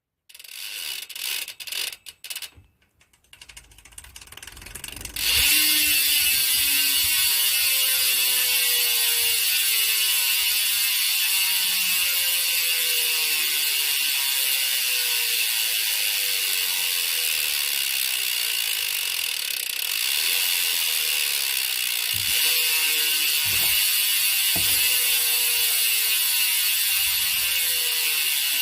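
Demolition Whistler BMX cassette hub freewheeling: the pawls ratchet in short bursts at first. About five seconds in they settle into a loud continuous buzz whose pitch slowly drops as the wheel coasts down. A few low knocks come near the end.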